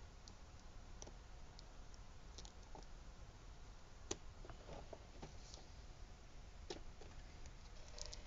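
Faint clicks and scratches of fingers working at the end of a cardboard figure box, with a sharper tap about four seconds in and another a little before seven. A few light knocks near the end as the box is stood on the table.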